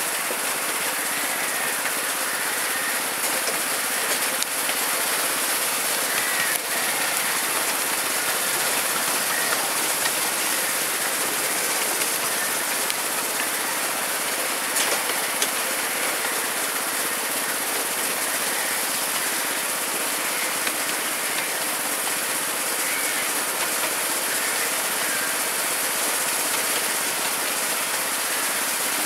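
Miniature railway train running along its track, heard from an open passenger carriage: a steady rattling hiss of wheels and carriages on the rails, with a few faint clicks.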